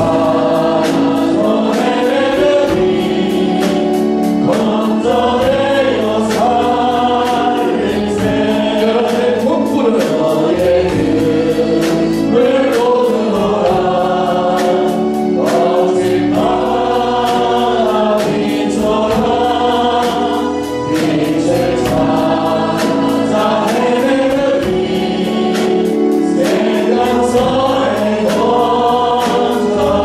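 Live Korean gospel praise song. A man leads the singing into a microphone, with many voices singing along and band accompaniment keeping a steady beat.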